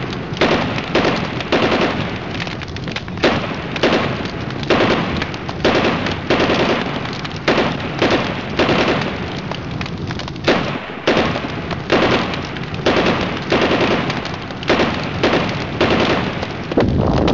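A regular series of sharp gunshot-like blasts, about one every 0.8 seconds, each trailing off in a short echo.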